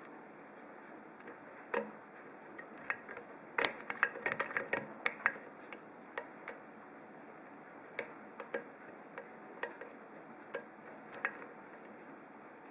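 Light metallic clicks and ticks of a hook pick and tension wrench working the pin tumblers in an old brass ASSA padlock's cylinder. A quick flurry of clicks comes a few seconds in, then single clicks at irregular intervals.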